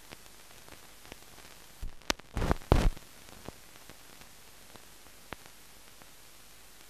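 Steady hiss from a blank film soundtrack with scattered faint crackles, broken about two seconds in by a short cluster of loud pops and crackles, and one more sharp click a few seconds later.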